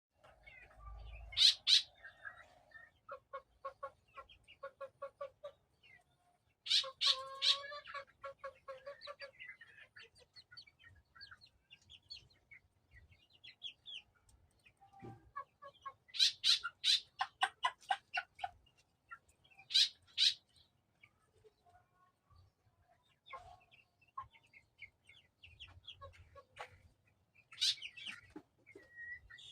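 Chickens clucking in runs of quick, short repeated notes, with a few louder, high-pitched calls breaking in several times.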